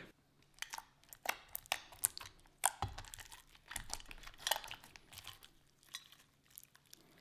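Clear glue slime with star confetti squeezed, pinched and pulled by hand, giving off scattered sticky clicks and small pops at an uneven pace.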